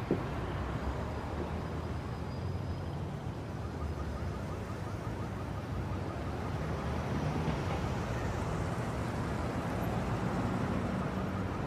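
City street traffic ambience: a steady hum of cars and road noise, a little louder in the second half.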